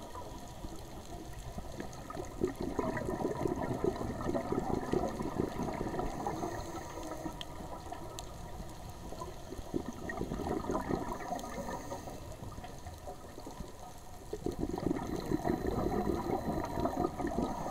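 Underwater bubbling and gurgling of a diver's exhaled breath, in two louder spells, one about two seconds in and one near the end, with a quieter underwater hiss between them.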